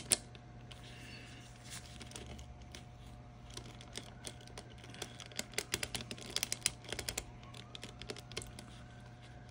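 Quick, irregular small plastic clicks from the dashcam's camera-tilt ratchet (click wheel) being worked, growing denser about halfway through, over a faint steady hum.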